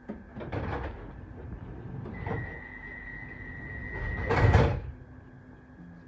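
Sliding passenger doors of a London Underground 1972 stock train: a steady high beep tone for about two seconds, then a loud bang as the doors reach the end of their travel.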